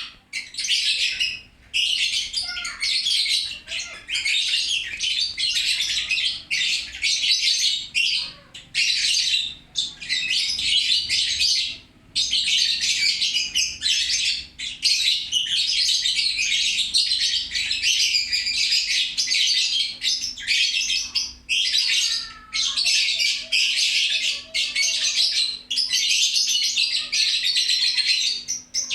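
Lovebird chattering nonstop: long runs of rapid, high twittering broken by brief pauses every few seconds.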